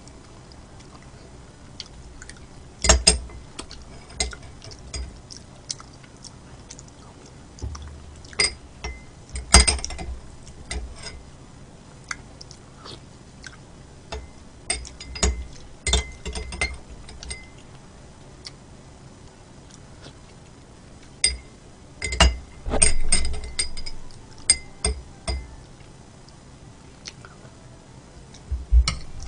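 Eating utensils clinking and tapping against bowls and dishes, irregular sharp clicks, each with a brief bright ring, clustered in several bursts.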